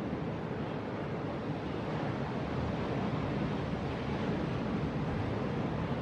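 Heavy ocean surf: big waves breaking in a steady rushing roar, with wind on the microphone. It grows a little louder after about two seconds.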